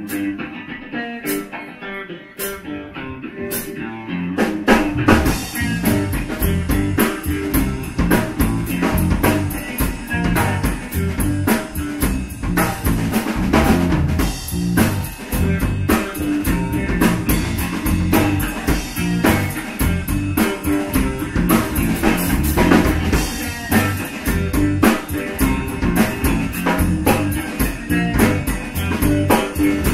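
Live blues-rock band playing: electric guitar, electric bass and drum kit. For the first four or five seconds the guitar plays lightly with a few sharp clicks over it, then the bass and drums come in and the full band plays loud and steady.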